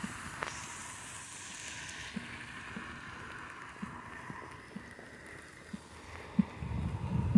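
Footsteps on a wet pavement, a soft thud about every half second to second, over a steady outdoor hiss. Near the end, wind buffets the microphone with a low rumble.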